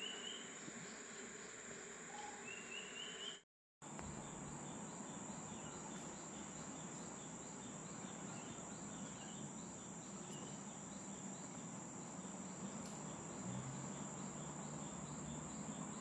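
Steady high-pitched drone of insects in tropical forest, with a few short rising chirps in the first few seconds. The sound drops out briefly about three and a half seconds in, then the drone carries on.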